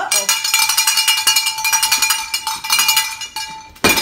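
A tub of cowbells shaken and banged, a fast continuous jangle of metallic clanks over steady ringing bell tones. A loud clank comes near the end, and the jangle dies away right after it.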